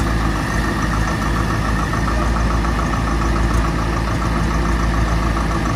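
Tractor diesel engine running steadily at an even speed, with no revving.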